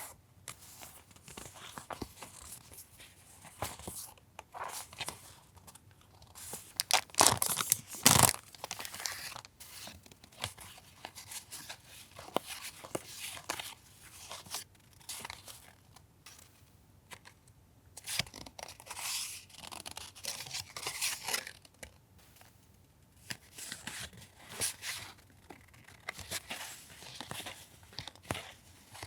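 Paper goods being handled and unpacked: irregular rustling, crinkling and tearing-like rasps of paper, loudest about seven to eight seconds in.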